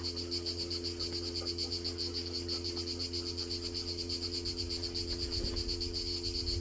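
A continuous, rapidly pulsing high-pitched insect trill, cricket-like, over a steady low hum.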